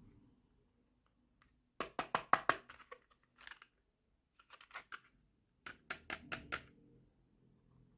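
Small plastic toy kitchen pieces being handled, clicking and clattering in quick runs of light taps, in about four bursts, the loudest about two seconds in.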